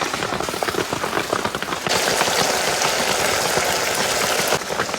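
Food frying in hot oil in a pan: a crackling sizzle that turns into a dense, louder hiss about two seconds in and stops suddenly near the end.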